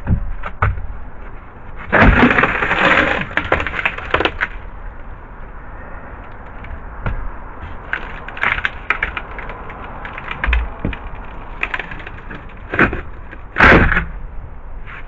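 Water-damaged carpeted plywood boat floor being pried and torn up, cracking and breaking. There is a dense run of cracking about two seconds in, scattered cracks in the middle, and two sharp, loud cracks near the end.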